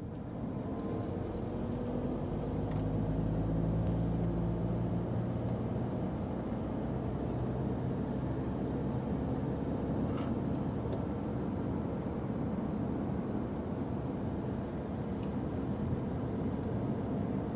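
Car engine and tyre noise heard inside the cabin while cruising at motorway speed: a steady drone that fades in at the start.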